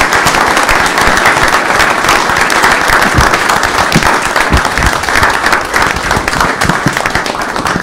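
A roomful of people applauding loudly and steadily: dense, sustained clapping from a seated audience.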